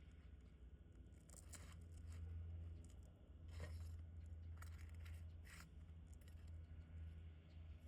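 Faint scraping and crackling of asphalt shingles being pried loose with a pry bar: several short scrapes over a low steady rumble.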